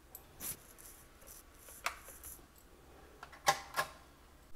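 A few scattered light clicks and taps, about four in all, two of them close together late on, over a faint hiss.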